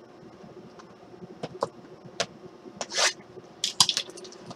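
Cardboard trading-card boxes (2016 Panini Origins football) being slid and set down on a tabletop by hand: scattered light taps and clicks, a brief scrape about three seconds in, and a quick run of clicks shortly after.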